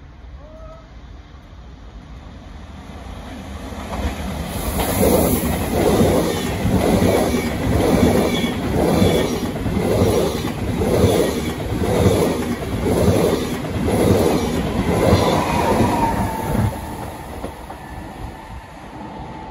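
SBB IC2000 double-deck passenger train passing through the station at speed. Its wheels clatter over the rails in an even beat about once a second, loud throughout the pass, then drop away suddenly near the end as the last coach goes by.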